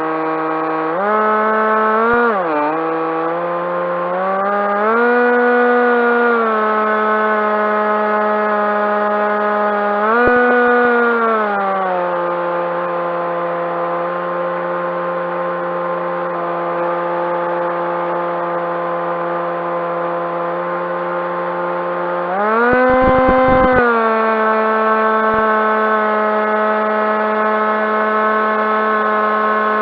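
Electric motor and propeller of a Skywalker RC plane running in flight, a steady whine that rises in pitch with throttle several times and settles back, holding steady at cruise in the middle stretch.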